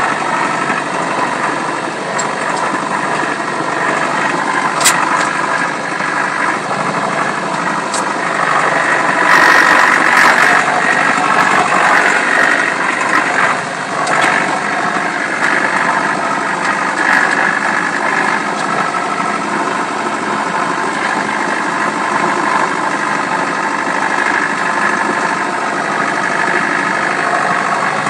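Tractor engine running steadily as the tractor drives through deep snow, a little louder for a couple of seconds about ten seconds in, with a few sharp clicks.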